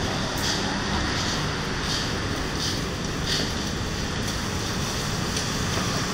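Steady low rumbling outdoor background noise. Over it, a plastic shopping bag rustles in about five short crinkles during the first few seconds.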